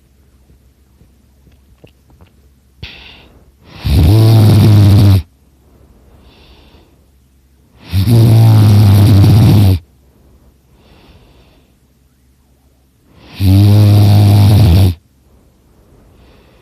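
A person snoring in deep sleep: three super loud snores, each about a second and a half long and coming roughly every five seconds, with a much softer breath out between them.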